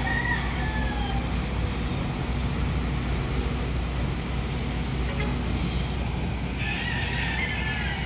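A rooster crows twice, once ending about a second in and again near the end, over a steady low engine hum.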